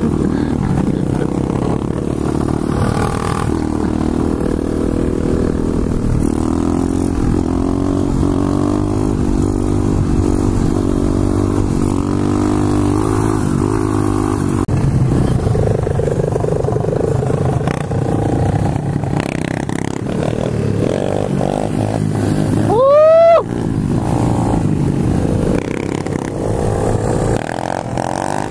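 125cc pit bike's single-cylinder engine running under way, its pitch rising and falling as the throttle is worked and gears change. About three-quarters of the way through, a brief loud rising tone cuts over the engine.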